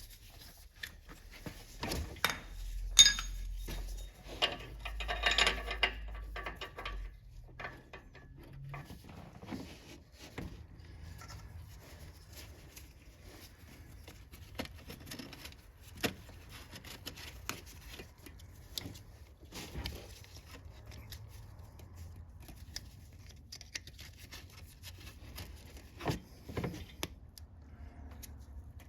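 Metal hand tools clinking and scraping against each other and the truck's parts as a new oxygen sensor is fitted, with scattered clicks and knocks and one sharp ringing metallic clink about three seconds in.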